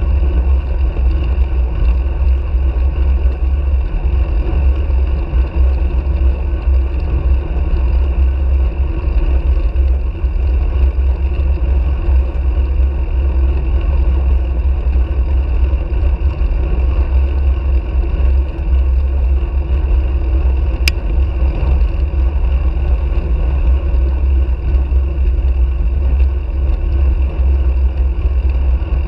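Steady, heavy wind rumble on a handlebar-mounted camera's microphone as a road bike rides along at speed, mixed with tyre and road noise. A single sharp click about two-thirds of the way through.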